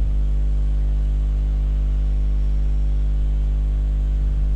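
Steady electrical hum and buzz, a deep drone with a stack of even overtones, unchanging throughout.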